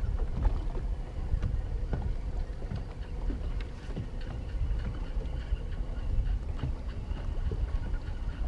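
Wind rumbling on the microphone aboard a small open boat, with water slapping against the hull and scattered light knocks.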